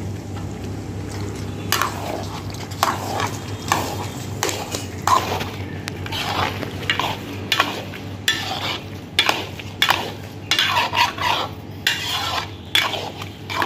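Long metal spatula stirring vegetables through a thick korma gravy in a metal kadai, scraping against the pan in repeated irregular strokes that start a couple of seconds in. A steady low hum runs underneath.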